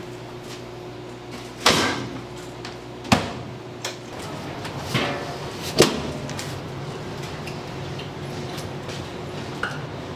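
Large metal cooking pots knocking and clanking against a steel basin and counter: three loud bangs, about two, three and six seconds in, with smaller clatters between, over a steady low hum.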